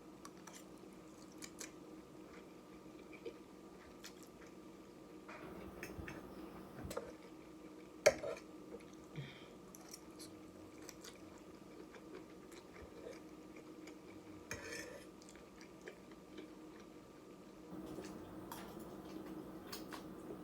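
A person chewing food at a meal, with scattered light clicks of cutlery against a dish and one sharp click about eight seconds in, over a faint steady hum.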